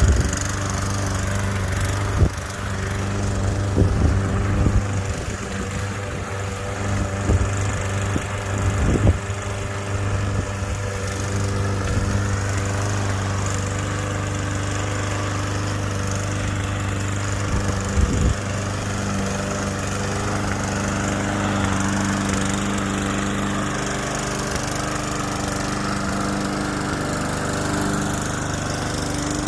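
Gas walk-behind lawn mower, likely a Toro, running steadily while cutting grass, with a few brief knocks scattered through the run.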